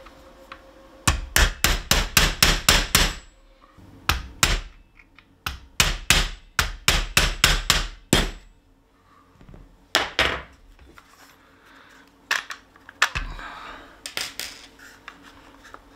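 Small hammer tapping a punch to drive a roll pin out of an Umarex HDX 68's pump handle. The taps are sharp metal-on-metal strikes at about four a second, coming in runs of several with short pauses between, then a few lone taps near the end.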